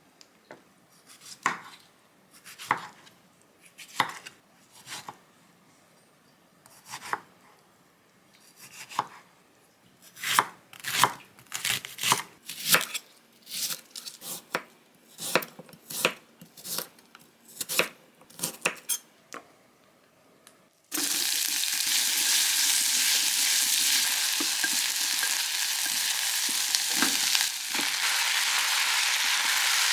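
Short sharp kitchen utensil strokes, sparse at first and then about two a second. About two-thirds of the way through, food frying in a hot pan starts suddenly with a loud, steady sizzle.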